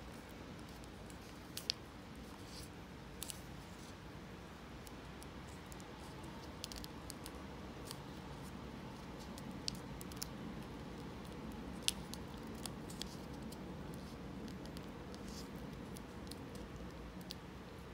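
Origami paper crinkling and rustling under the fingers as it is folded and creased, with scattered short, sharp crackles of the paper a second or more apart over a faint steady room hum.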